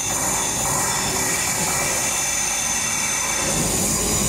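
A train at the platform running steadily, a hissing rumble under a high steady whine, with a lower rumble building near the end.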